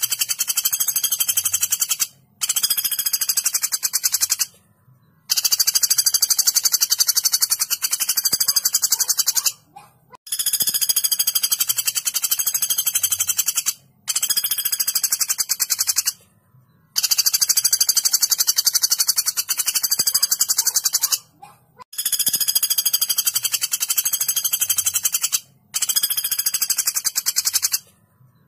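Common flameback woodpecker (pelatuk bawang) giving its long, sharp, rapid rattling call. It comes in about eight high-pitched bursts of two to four seconds each, separated by short pauses.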